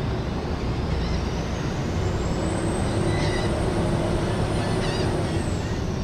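Steady low rumble of engines aboard a car ferry. Over it a high whine climbs for the first few seconds, holds, and drops away near the end.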